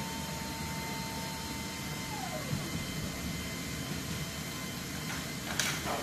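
Steady machinery hum and hiss in a C-17 Globemaster III's cargo hold on the ground. A high whine drops in pitch and stops about two seconds in, and a short hiss comes near the end.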